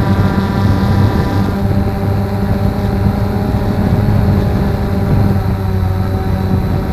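The motors and propellers of a HobbyKing Nova quadcopter, heard close from its onboard camera, hum steadily with several pitches at once. The pitch mix shifts about a second and a half in as the throttle changes.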